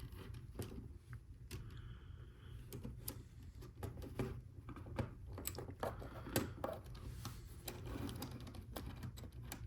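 Plastic Lego Technic pieces clicking and rattling as they are handled and pressed together, in many small irregular clicks over a steady low hum.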